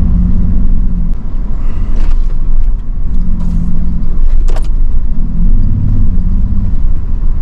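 Vehicle engine running as it drives a rough off-road trail, a steady low rumble with an engine drone that rises and falls, and a brief sharp knock about four and a half seconds in.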